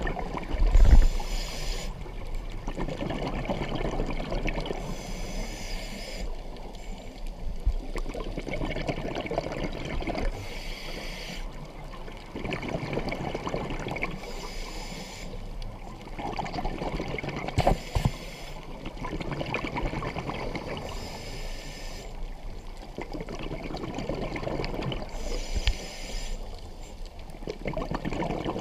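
A scuba diver breathing through a regulator underwater, heard through the camera housing: a hissing inhale, then a stretch of bubbling exhale, repeating about every four to five seconds. A loud knock about a second in, and a few sharp clicks later on.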